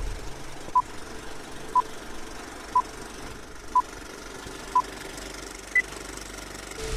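Film countdown leader sound effect: short beeps once a second over a faint hiss, with a single higher-pitched beep near the end marking zero.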